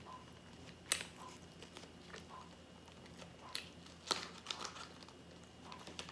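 A McDonald's apple pie's cardboard sleeve crinkling and tearing as it is handled and peeled back. There are a few sharp crackles, the loudest about a second in and a cluster around four seconds in.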